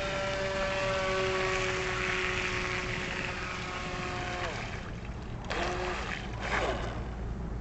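Feilun FT009 RC speedboat's electric motor whining over water noise, its pitch slowly sinking, then dropping off sharply about four and a half seconds in as it slows. Faint voices follow near the end.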